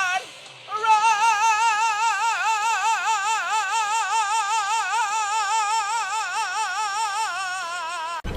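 A single voice sings one long high note with a wide, even vibrato, held for about seven seconds and cut off suddenly near the end.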